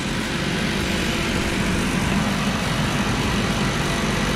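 Electric bouncy castle blower running steadily, an even fan hum with rushing air as it blows through its inflation tube into the castle.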